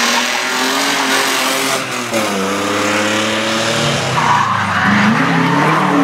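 Rally car engine (a BMW E30) working hard through a corner. Its note holds, drops sharply about two seconds in at a gear change, then climbs again, with tyres squealing on the damp tarmac.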